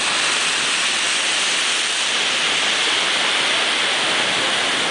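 Heavy ocean surf breaking, heard as a steady, even hiss of whitewater with no separate wave crashes.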